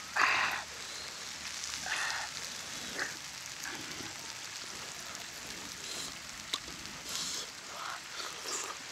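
A man eating grilled frog meat with his fingers: short bursts of chewing and lip-smacking, with small clicks as meat is pulled from the bones, over a steady background hiss.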